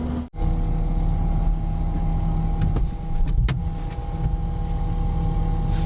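Excavator running steadily, its engine and hydraulics making a constant low drone with a steady whine over it. A short break in the sound comes just after the start, and a single sharp click sounds about three and a half seconds in.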